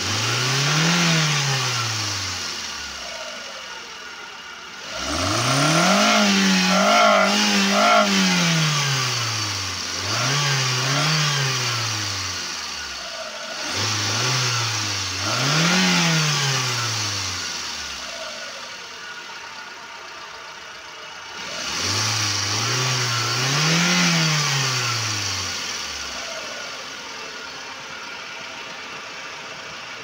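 Hyundai Santro Xing's petrol engine revved in five blips, one held high for a couple of seconds about five seconds in, dropping back to idle between them and over the last few seconds. The engine is overheating and boiling its coolant, with a gasket fault suspected.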